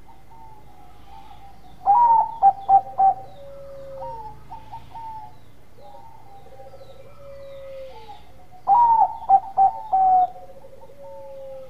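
Zebra dove (Bangkok perkutut) cooing. There are two loud song phrases, about seven seconds apart, each a quick run of short notes ending in a longer held note. Fainter dove cooing continues between them.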